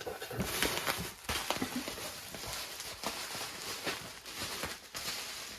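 Rustling and handling of a shipping package being opened, with many small clicks and knocks.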